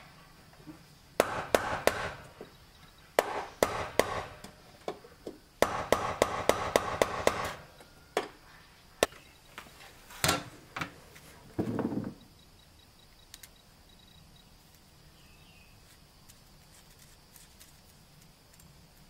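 Hand work at an open electrical breaker panel: several bursts of quick, sharp knocks and taps over the first seven or eight seconds, a few single knocks after, and a short rustle about twelve seconds in.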